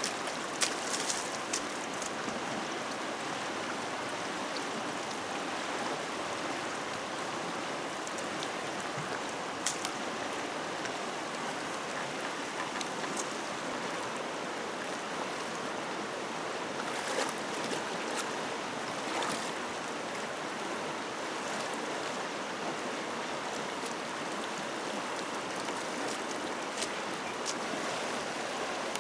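Flooded river in fast flow, rushing water running steadily, with a few brief splashes or knocks now and then; the loudest come about a second in.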